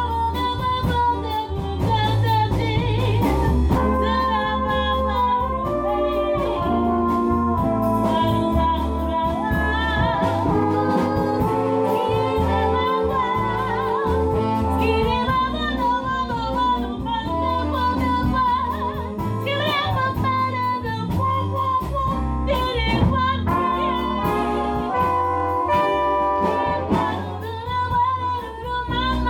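A woman sings a bossa nova into a microphone over a jazz band's accompaniment, with a walking bass line underneath.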